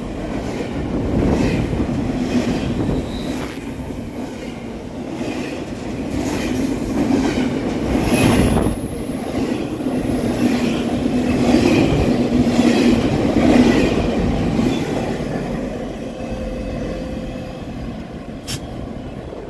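Double-stack container well cars of a freight train rolling past at speed: a steady rumble of steel wheels on rail with a regular clickety-clack over the rail joints, easing off in the last few seconds.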